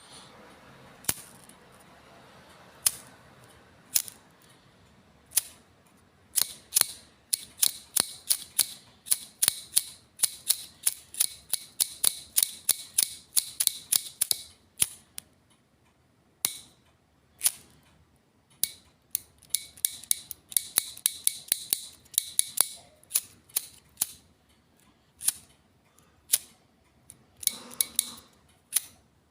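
Bic lighter being struck over and over: sharp clicks, some single and spaced apart, others in fast runs of about three or four a second.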